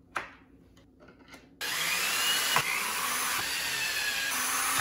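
A light knock, then about a second and a half in a cordless drill starts driving a screw through a 3D-printed plastic bracket into a wooden chair leg, its motor whine slowly dropping in pitch as the screw bites, and it stops abruptly.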